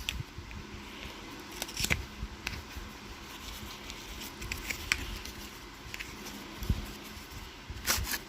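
Scattered small clicks and rustles of cosmetic packaging being handled and opened by hand, with a low thump about two-thirds of the way through and a quick run of clicks near the end, over a faint steady hum.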